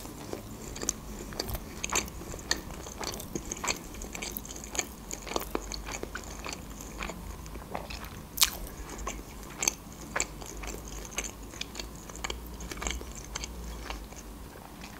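A person chewing and biting sushi rolls: irregular small clicks and crunches, with one sharper crunch about eight and a half seconds in.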